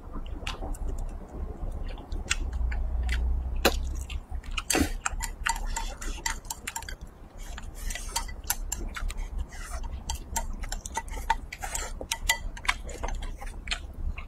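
Wooden chopsticks clicking and scraping against a ceramic bowl as the last of the food is shovelled from the tipped bowl into the mouth, with close-up eating sounds. The clicks are many and irregular.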